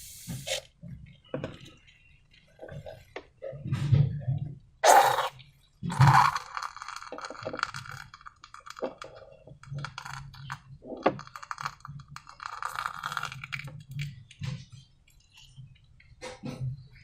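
Slime-making handling sounds: irregular knocks, clicks and clinks of containers and tools being set down and moved, with a few longer scraping stretches.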